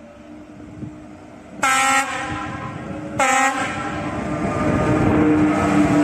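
A train horn sounds two short blasts about a second and a half apart. The train's running noise then grows steadily louder as it approaches.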